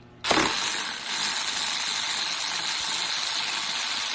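ACDelco cordless electric ratchet with a 10 mm socket running, spinning out a front drive shaft flange bolt: a steady whir that starts suddenly a quarter second in.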